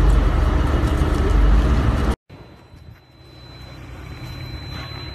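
Loud outdoor rumble, heavy in the low end, that cuts off abruptly about two seconds in. It gives way to quieter outdoor ambience with a faint steady high tone.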